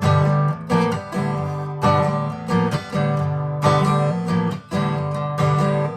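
Acoustic guitar strummed in a steady rhythm, playing an instrumental break in a song.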